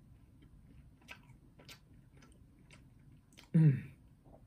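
A person biting into and chewing a toasted cheese toastie, with faint scattered crunches and mouth clicks. About three and a half seconds in comes a short, louder vocal sound that drops in pitch.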